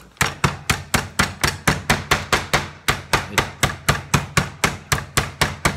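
Wooden meat mallet pounding a chicken breast flat through plastic film, a rapid, even series of thuds at about four to five blows a second.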